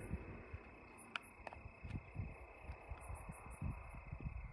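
Crickets chirping in a steady, faint night chorus, with soft low rumbles coming and going underneath.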